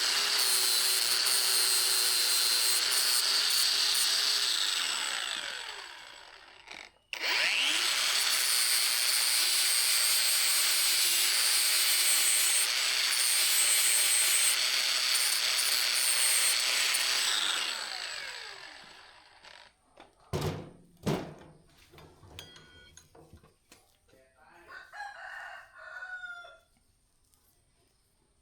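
Electric power tool running with a steady whine working the metal. It spins down about five seconds in, starts up again with a rising whine, and runs until it winds down at about eighteen seconds. Two sharp knocks follow, then a rooster crows near the end.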